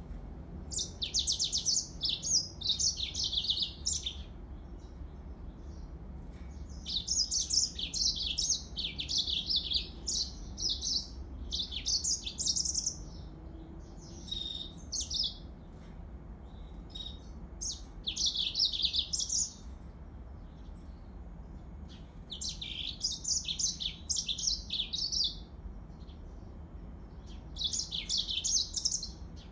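Yellow-fronted canary singing: fast, high twittering phrases of a few seconds each, with pauses of a few seconds in between.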